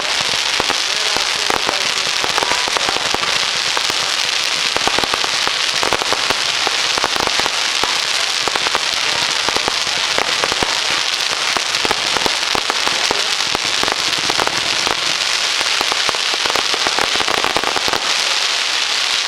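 Fireworks crackling: a dense, continuous stream of many small rapid pops.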